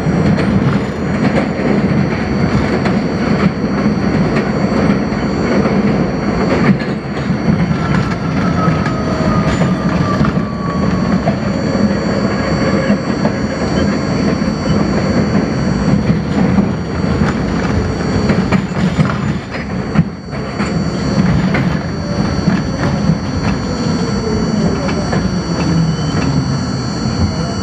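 R42 subway car running along elevated track, its wheels rumbling and clattering over the rail joints. A faint falling wheel squeal comes through about a third of the way in and again near the end.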